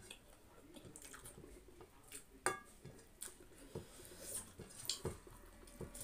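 Mukbang eating sounds: chewing and fingers squishing and mixing rice and curry on a ceramic plate, with soft scattered clicks and one sharp clink against the plate about two and a half seconds in.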